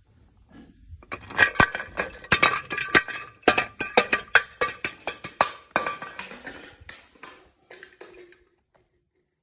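Glass being crushed and breaking: a dense run of sharp cracks and clinks with a glassy ringing, starting about a second in and thinning out before stopping near the end.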